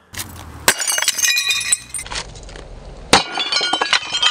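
Ceramic mug shattering under a sledgehammer: a sharp crash about half a second in, then shards clinking and ringing as they scatter, and a second crash with more tinkling pieces about three seconds in.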